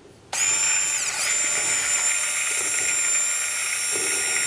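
Handheld stick blender switched on and running steadily in a stainless steel bowl, whisking egg yolks, sugar and juice, with a high steady whine.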